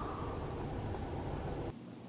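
Steady low rumbling background noise with no distinct calls, cutting off suddenly near the end.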